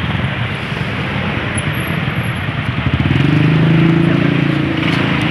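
Busy road traffic close by: cars and motorcycles running past in a steady wash of engine and tyre noise, with one engine growing louder about three seconds in.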